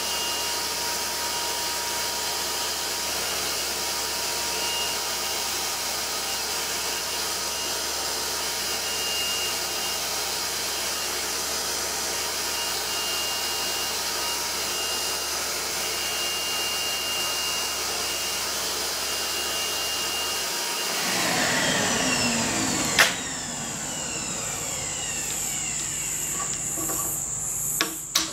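Deckel-clone D-bit cutter grinder running with a steady whir while it takes a very light finishing grind on the flute edges of a carbide end mill. About 21 seconds in the sound changes, and after a sharp click about 23 seconds in a whine falls in pitch as the machine winds down.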